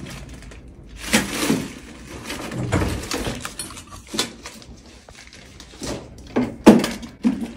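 PVC plumbing fittings clattering and knocking together as hands rummage through a toolbox, with a plastic bag rustling; the sharpest knocks come near the end.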